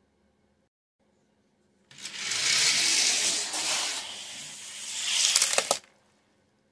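Hot Wheels Mario Kart toy karts rolling down orange plastic Hot Wheels track: a rattling rush of about four seconds, ending in a few sharp clacks, after which it stops abruptly.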